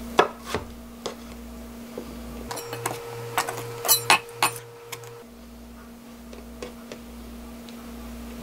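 Kitchen knife cutting through pickled radish (danmuji) strips onto a wooden cutting board: a series of sharp taps and knocks, thickest and loudest around four seconds in, over a steady low hum.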